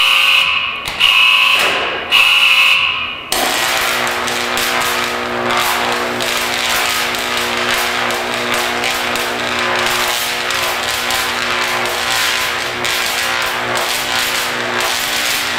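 Three loud, high-pitched tone blasts, then a 75,000-volt DC arc strikes about three seconds in. It crackles and buzzes steadily and harshly as it jumps from the electrode to the pineapple's leaves.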